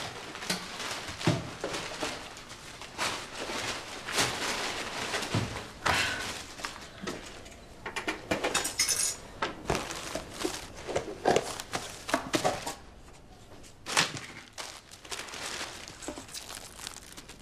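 Small objects handled on a desk: irregular rustling with light clinks and knocks scattered through, no steady rhythm.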